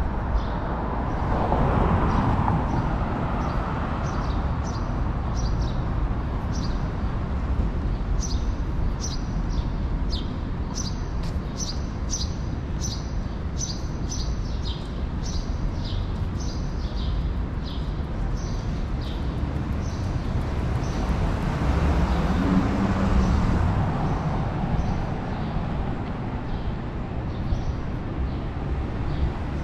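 Steady downtown street traffic with vehicles passing, one shortly after the start and another past the middle. Over it a small bird keeps up short, high chirps, about two or three a second, busiest through the middle.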